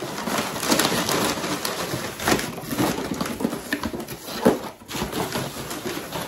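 Rustling and clattering of packaging and products as a hand rummages inside a cardboard subscription box, with a sharper knock about four and a half seconds in.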